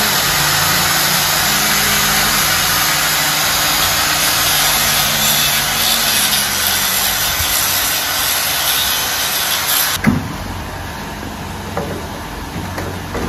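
Angle grinder running and cutting into a wall: a loud, steady grinding with a constant motor hum that cuts off suddenly about ten seconds in.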